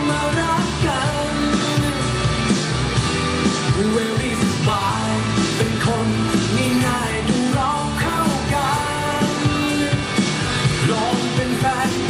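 A song with singing and a steady beat, played loud over stage PA speakers as dance music.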